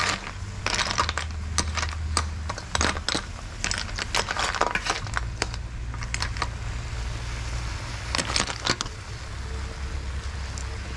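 Snail shells clattering against a metal basin and against each other as a metal spoon stirs them, in irregular runs of sharp clicks.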